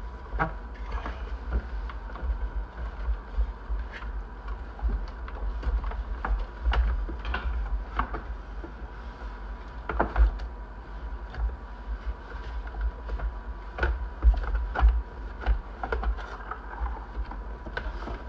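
Plastic housing parts of a Keurig coffee maker being handled and pressed together during reassembly, with irregular clicks and knocks as panels and clips are fitted.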